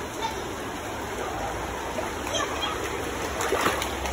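River water flowing steadily, with a brief splash about three and a half seconds in.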